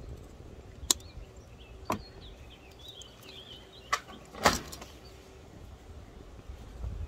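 Four sharp clicks and snaps from garden wire being worked around a metal plant stake, the loudest about halfway through. Birds chirp in the background, and wind rumbles on the microphone.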